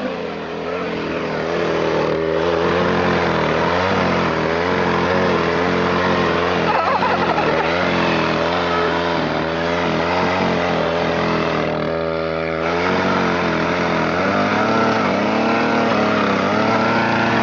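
Two-stroke chainsaw running and being revved up and down repeatedly. Its pitch rises and falls every second or so, and it dips briefly about twelve seconds in before picking up again.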